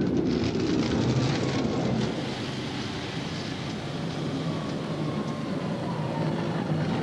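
Military cross-country vehicle driving on a gravel road: a steady engine and road noise.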